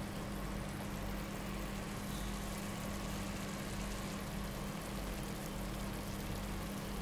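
Steady low hum under an even hiss, from a pot of tomato sauce with eggs simmering over a gas burner.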